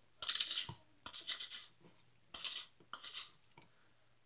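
Four short hissing bursts of a person voicing gunfire sound effects with the mouth, evenly spread with quiet gaps between.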